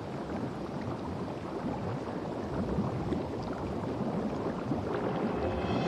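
Bubbling, gurgling sound effect made of many small pops, growing slowly louder.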